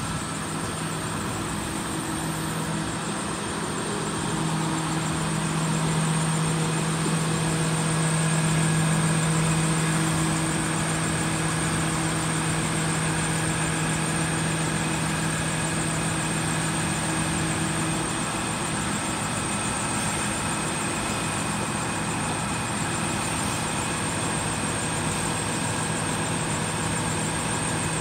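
Truck-mounted crane's engine running steadily while the crane holds and swings a hoisted load. Its low hum swells for several seconds in the first half and then settles back.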